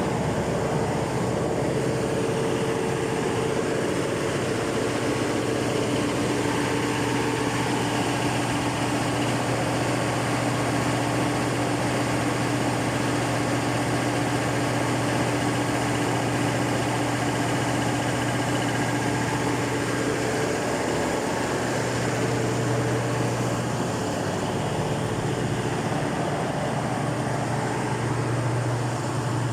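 Cummins KTA50 V16 turbocharged diesel engine running at a steady speed on its test run after a general overhaul, with a constant drone and no change in pitch.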